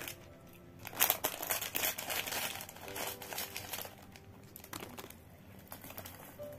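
A small plastic-foil snack packet being handled, torn open and crinkled, loudest in a run of crackling about a second in, then quieter as the snacks are tipped out of it.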